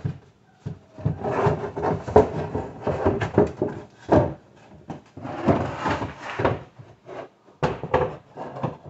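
Wooden panels cut from a hollow-core door sliding, scraping and knocking against a wooden kitchen cabinet frame as they are pushed into place, with several sharp separate knocks near the end.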